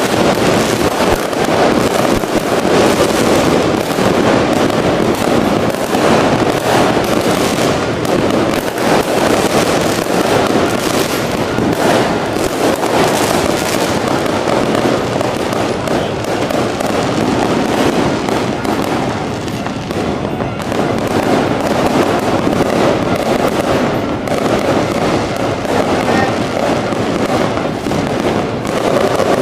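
Fireworks going off in a dense, continuous barrage of pops, bangs and crackles, one burst running into the next with no pause.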